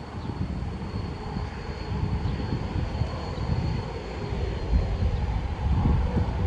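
Jet airliner engines running: a low, uneven rumble with a thin, steady high whine above it.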